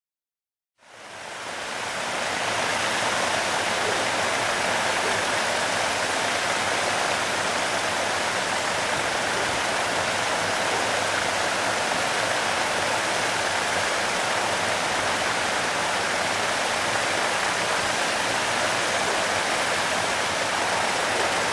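TA-66 high-speed paddlewheel aerator churning pond water: a steady rushing splash that swells in about a second in and then holds even.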